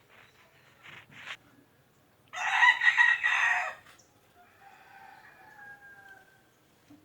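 A rooster crowing: one loud crow about two and a half seconds in, lasting about a second and a half, then a fainter, longer drawn-out crow. A couple of short faint calls come before the loud crow.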